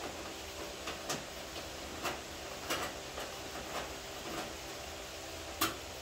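Irregular light clicks and taps from hand work on a car's front-end body panels, about half a dozen over a few seconds, the sharpest one near the end, over a steady background hum.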